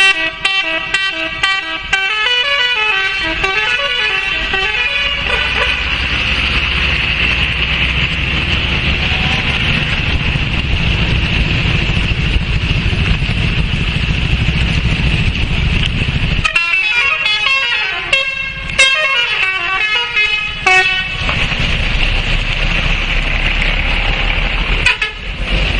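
Indonesian bus 'telolet' musical horn playing a quick warbling tune of several tones for about five seconds, followed by a long stretch of steady noise with a low hum. The horn tune returns for a few seconds about two-thirds of the way through.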